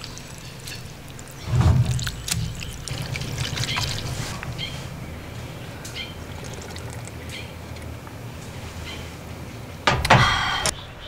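Chopsticks stirring wheat naengmyeon noodles in cold broth in a bowl, the broth sloshing and trickling, then broth drunk straight from the bowl. A short louder sound near the end as the bowl comes back down.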